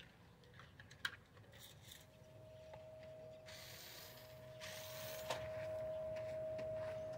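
Toy RC monster truck's small electric motor and gears whining at one steady pitch, getting louder over the second half, with two short hissy scrapes in the middle and a click about a second in.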